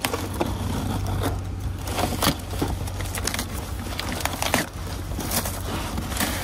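Rummaging through boxes and packaging in a dumpster: irregular rustling, crinkling and scraping, with knocks as items are shifted, over a steady low hum.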